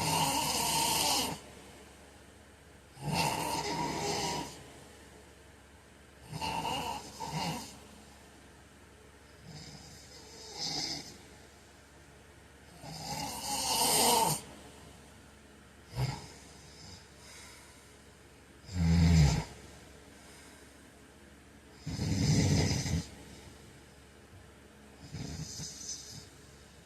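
A man snoring in his sleep, one loud snore about every three seconds, uneven in strength. One snore around two-thirds of the way through is deeper than the rest, and there is a brief click about halfway.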